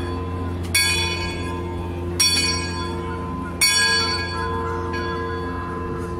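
A large bell struck three times, about one and a half seconds apart, each stroke ringing on as it fades, over a steady low hum. It is most likely the riverboat's own bell.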